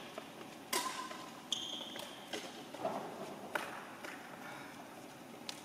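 Scattered sharp taps and knocks of badminton play on an indoor court: racket strings hitting a shuttlecock and feet on the floor, echoing in a large hall. A short high squeak about one and a half seconds in is a shoe on the court floor.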